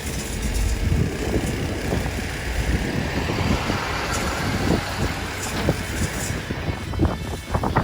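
Jet airliner engine noise at an airport, a rushing hiss that swells and fades about halfway through, under strong wind buffeting the microphone with irregular low thumps.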